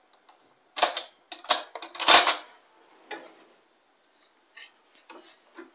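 Kitchen utensils and dishes clattering: about four sharp clinks and knocks in the first three seconds, the one a little after two seconds the loudest and longest, then a few faint taps.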